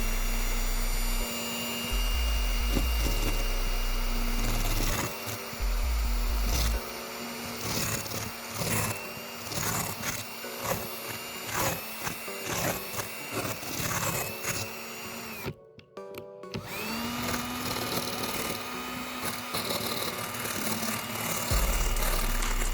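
Power drill with a wire-brush attachment spinning up and scrubbing old headliner glue off the headliner board, stopping for about a second near three-quarters through, then spinning up again. Background music plays alongside.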